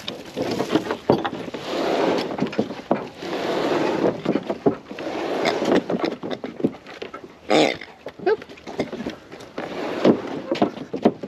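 Scraping, creaking and knocks as a motorcycle is shoved by hand along a wooden trailer deck.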